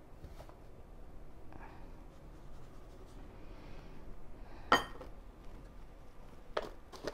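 Soft handling sounds of sugar being poured from a measuring cup into a plastic mixing bowl, with one sharp, ringing clink of the cup about two-thirds of the way through and a couple of lighter clicks near the end.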